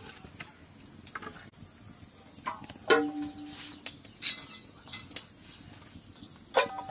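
A metal plate knocked and clinking several times. The knock about three seconds in leaves a short metallic ring.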